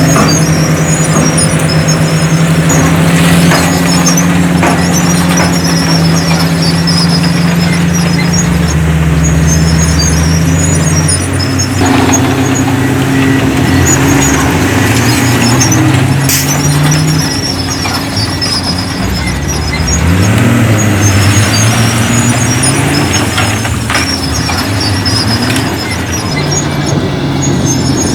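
Heavy diesel machinery at work, a bulldozer with dump trucks: engines run loudly, their pitch shifting up and down and rising about twenty seconds in, with a high squeal coming and going.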